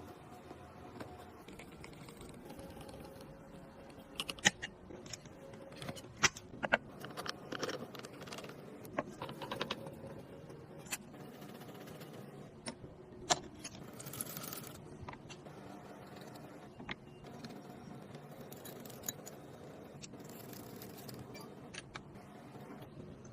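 Irregular clicks, taps and light metallic clinks of small computer parts and hardware being handled during a PC assembly, over a faint steady background.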